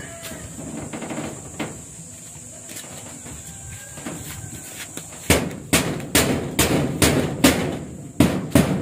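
A hand tool striking hard, sharp blows about twice a second, beginning about five seconds in, with a few fainter knocks before.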